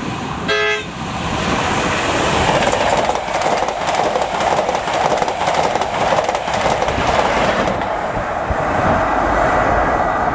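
An express passenger train gives a short horn blast about half a second in. It then passes close by at speed with a loud rush of wheels on rail and rattling coaches. The sound drops away after about eight seconds as the train recedes.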